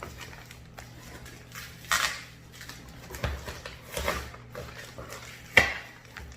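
Metal parts and tools clanking and knocking against each other, four separate knocks with the last the loudest, from handling the seat slider and seat rail hardware.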